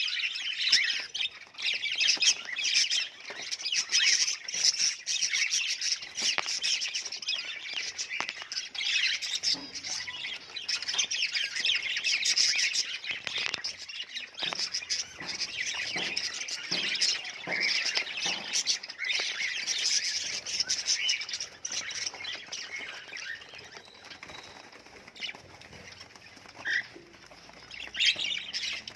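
Budgerigars chattering and chirping, many short overlapping calls at once, going quieter and sparser for a few seconds near the end before picking up again.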